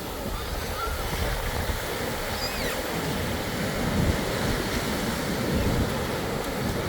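Ocean surf washing onto the beach, with wind buffeting the microphone. A few faint high chirps come through about a second in and near the middle.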